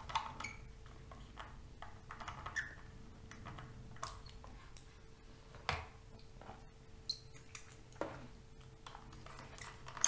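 Small screws being driven by hand with a screwdriver into a laptop optical-bay hard-drive caddy: faint scattered clicks and scrapes of metal and plastic parts, with two sharper clicks in the second half, over a faint steady hum.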